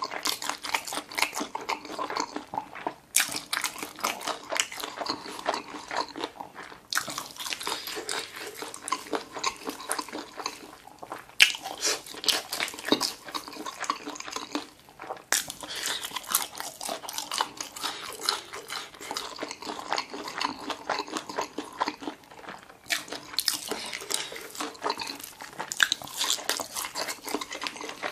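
Close-miked chewing and biting of boneless chicken feet coated in sticky sauce: a dense run of wet, crunchy mouth clicks, broken by a few brief pauses.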